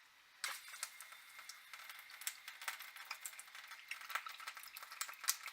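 Water spurting from the dispensing faucet of an electronically controlled under-sink water heater, a crackling, sputtering hiss that starts suddenly about half a second in, a sign the heater is dispensing again after its loose terminal was reconnected.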